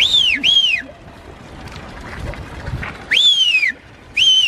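Four loud whistled notes, each rising and then falling in pitch: two short ones in quick succession, then about two seconds later a longer one followed by a short one.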